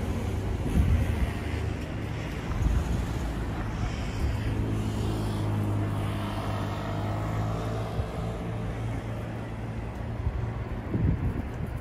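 An engine's steady hum grows louder in the middle and fades again near the end, over a constant low outdoor rumble.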